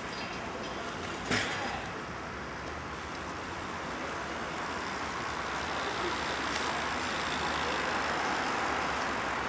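Steady street traffic noise that swells slowly toward the end, with one sharp knock about a second in.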